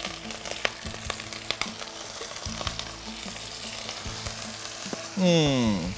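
Whole prawns and chopped garlic sizzling as they fry in melted butter in a stainless steel pot, with scattered pops. Near the end a short, loud sound falls in pitch.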